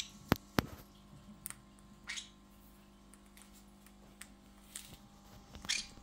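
Faint small sounds from Pyrrhura conures in their wire cage: two sharp clicks near the start, then short scratchy rustles about two seconds in and again just before the end, over a low steady hum.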